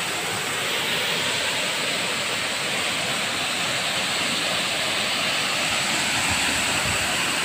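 Waterfall crashing into its plunge pool: a steady, unbroken rush of falling water.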